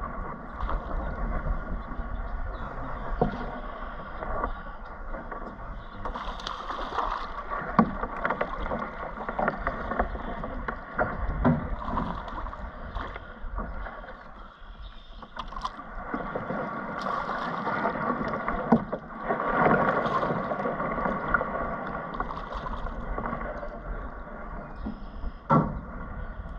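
Fishing kayak on the water: a steady wash of water moving against the hull, with scattered knocks and clicks of the rod, reel and paddle being handled in the boat, and one sharper knock near the end.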